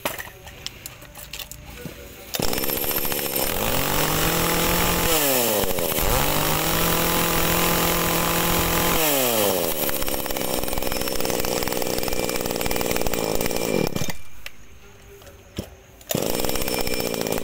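Tanaka 33 cc top-handle chainsaw's two-stroke engine starting about two seconds in, revved up to a high pitch, briefly dropping and revving again, then settling back to idle. It dies out near the end and is restarted, idling again.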